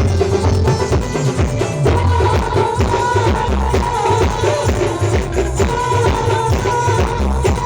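Live band playing a Hindi song: a steady, loud drum beat, with a wavering melody line coming in about two seconds in.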